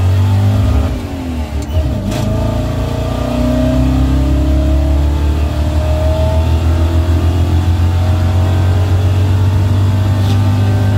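383 cubic-inch small-block Chevy V8 in a Chevy dually pickup pulling hard under acceleration, heard from inside the cab. The engine note drops at a gear change about a second in, then climbs and levels off.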